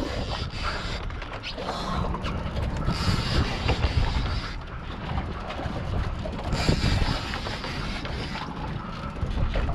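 Saltwater fishing reel being cranked steadily, a fast continuous gear whir and clicking as a fish is reeled up from the bottom.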